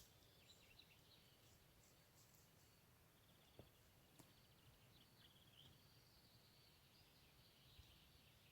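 Near silence with faint birdsong: high twittering and trilling calls, with a couple of soft ticks.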